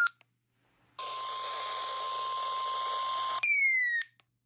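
NOAA Weather Radio's 1050 Hz warning alarm tone: a steady high beep over radio hiss, the alert signal that comes before a warning is read. It starts about a second in, is cut off by a short falling electronic chirp, and starts again near the end.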